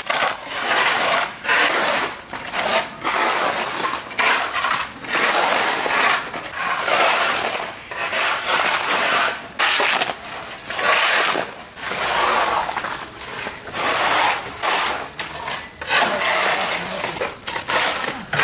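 Metal shovel and hoe blades scraping wet mud across asphalt, in repeated irregular strokes about one a second.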